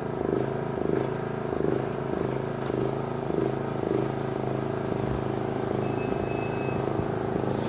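Engines of a riding lawn mower and a car running steadily during a race, with an even pulsing throb for the first few seconds.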